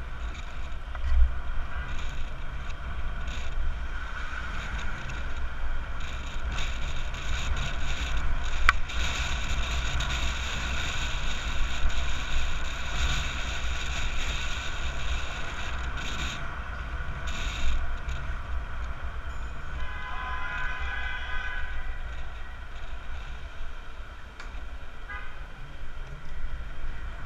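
Wind rumble on the microphone and street traffic noise while riding a bicycle along a city street. A sharp click comes about nine seconds in, and a short horn toot about twenty seconds in.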